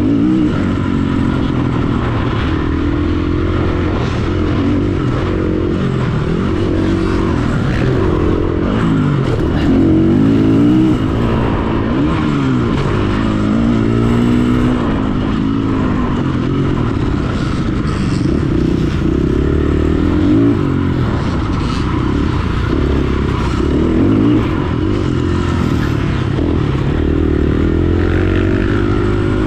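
Husqvarna FE 350 S four-stroke single-cylinder engine running hard, its revs rising and falling again and again as the throttle is opened and rolled off, heard from on the bike.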